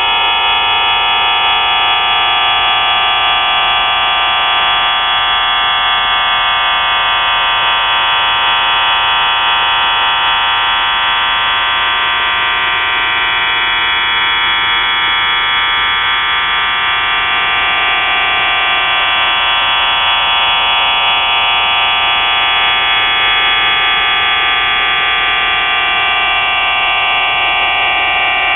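Shortwave radio receiver tuned to 4632 kHz, putting out a dense, steady buzzing made of many stacked tones, with faint whistles slowly drifting up and down in pitch across them.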